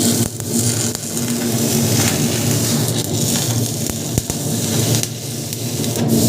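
Electric arc welding: the arc's steady crackling sizzle over a low, steady hum, with a few brief pops.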